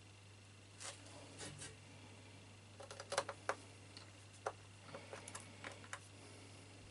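Light clicks and taps of tiny screws and a small screwdriver on a MacBook Pro's metal bottom cover as the screws are set loosely into their holes, in irregular clusters over a faint steady low hum.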